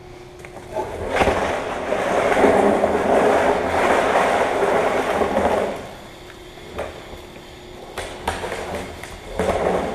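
Trash can dragged across a concrete shop floor, a rough scraping rumble for about five seconds. A few knocks and a shorter scrape follow near the end, over a faint steady hum.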